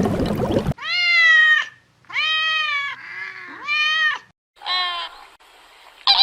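A cat meowing: about five drawn-out meows in a row, each rising and then falling in pitch, one of them softer and lower.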